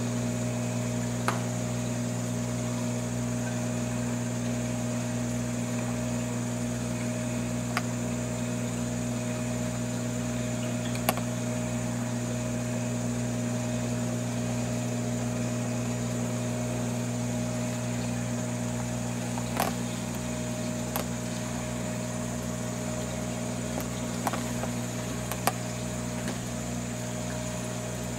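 Aquarium pump humming steadily with a low, even drone, and a few scattered clicks.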